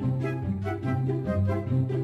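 Background music: a light, bouncy tune of short repeated pitched notes over a steady bass line.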